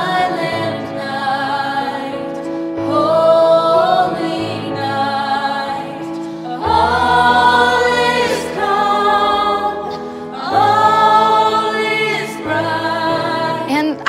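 Small youth choir singing in harmony, in phrases of long held chords that swell and ease off, with a deep low note joining about halfway through.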